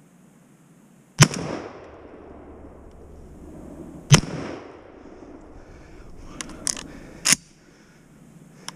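Three gunshots, about three seconds apart, each followed by a short echo. A couple of lighter clicks come just before the third shot.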